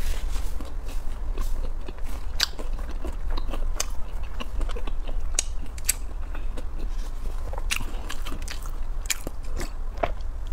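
A person chewing food close to a lapel microphone, with irregular crisp clicks and crackles of the bites, over a steady low hum.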